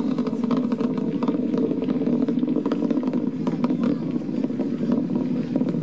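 Atlas V rocket climbing under its RD-180 main engine and five solid rocket boosters: a steady low rumble with a scatter of sharp crackles through it.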